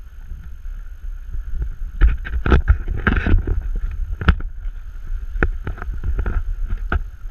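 Wind buffeting the microphone with a steady low rumble; from about two seconds in, a run of irregular sharp knocks and slaps.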